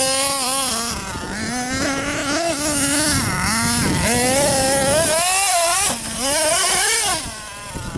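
Hobao Hyper ST radio-controlled truggy's motor revving up and down over and over as it is driven, easing off briefly about five seconds in and again near the end.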